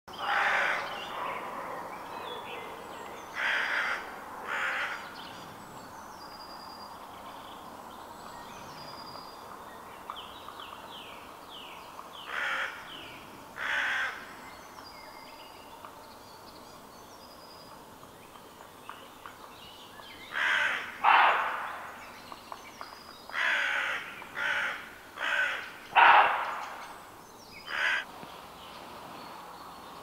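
A crow cawing: harsh single caws and short runs of two to four, louder in the second half. Small birds sing faintly with high, thin notes in the background.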